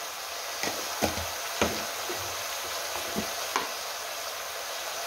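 Pigeon peas, brinjal and potato sizzling steadily in oil in a pressure cooker pan on the stove, with a few light, sharp utensil knocks.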